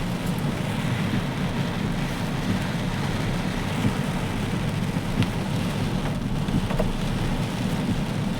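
Heavy rain falling steadily, an even hiss with a few faint drip ticks.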